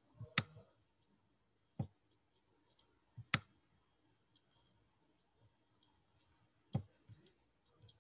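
Computer mouse clicking: several sharp, isolated clicks, including two quick double clicks, one just under half a second in and one a little past three seconds.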